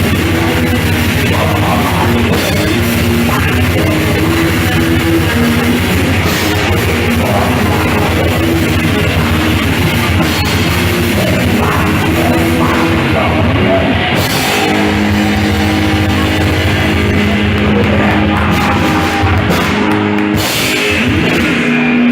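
Black metal band playing live: distorted electric guitars over drums. The drumming and cymbals thin out in the second half, leaving mostly held, distorted guitar notes near the end.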